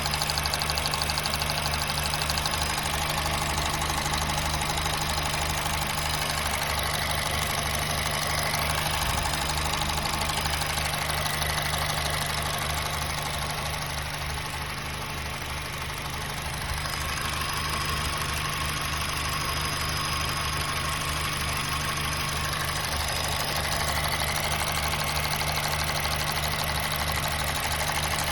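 A 2007 Honda Fit GD3's four-cylinder engine idling steadily, its valvetrain ticking evenly with the intake and exhaust valve clearances freshly adjusted back into spec. The sound dips a little quieter about halfway through.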